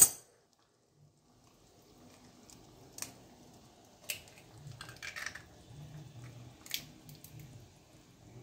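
Eggs being cracked open one at a time for an egg gravy: a few short sharp cracks a second or so apart, with faint handling noise between them.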